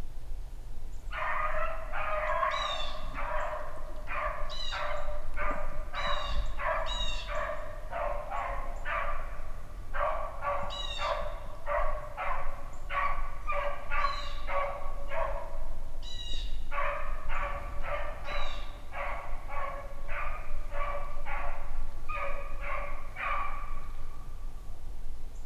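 Beagle puppy baying on a rabbit's trail: a steady run of pitched barks, about two a second, with two short breaks.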